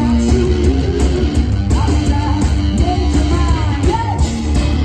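A live rock band playing loud: electric guitar and drums, with a lead line that bends up and down in pitch.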